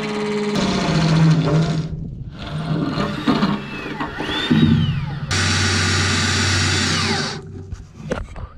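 Electric drill running in two bursts, the first about a second and a half, the second about two seconds, each stopping abruptly: drilling holes through the hull beside the dagger-board slot for the rope fittings.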